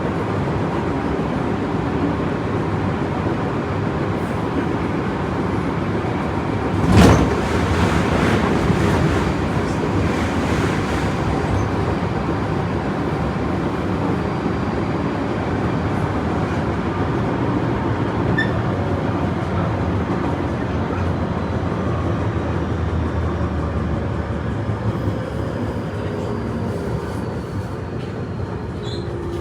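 Tobu 30000 series electric train running at speed, heard from inside the car: a steady rumble of wheels on rails and traction equipment. A sudden loud burst comes about seven seconds in, followed by a few seconds of rougher noise, and the running noise eases slightly near the end.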